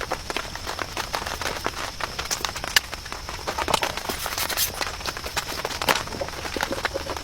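Raindrops tapping irregularly on a surface over a faint steady hiss of rain.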